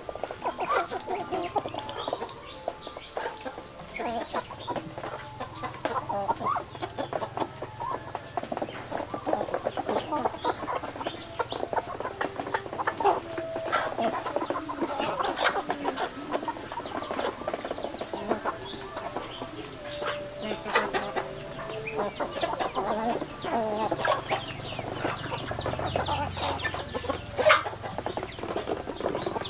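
A flock of chickens clucking continuously as they forage, with many short calls overlapping.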